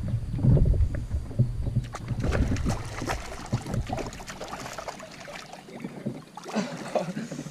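Wind buffeting the microphone as a low rumble that dies away about halfway through, with a scatter of clicks and crackle about two to four seconds in.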